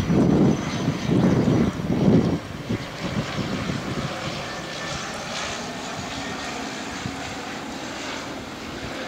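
De Havilland Canada Turbine Otter floatplane's turboprop engine and propeller droning as it flies low past. It is loudest in three surges over the first two and a half seconds, then settles to a steadier, softer drone as the plane moves away.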